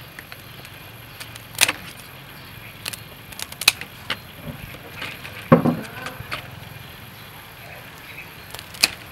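Kitchen scissors snipping through raw crab shell, with crab pieces clicking and knocking against a stainless steel tray: a handful of separate sharp snips and clicks a second or so apart, one heavier, duller knock about halfway through.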